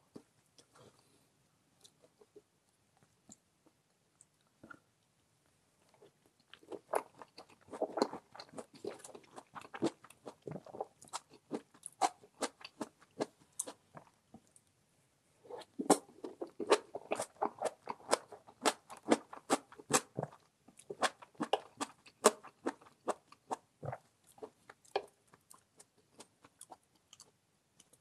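Close-miked chewing of crunchy food, likely radish kimchi or pickled radish: crisp, repeated crunches with wet chewing in between. It starts about six seconds in and pauses briefly midway.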